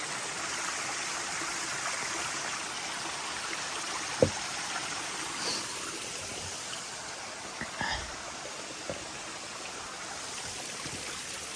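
Creek water running with a steady rushing sound. A single sharp knock about four seconds in, and a few fainter ticks later.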